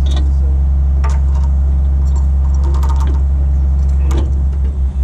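An engine running steadily at idle, with a few light metallic clinks over it; the engine note wavers briefly near the end.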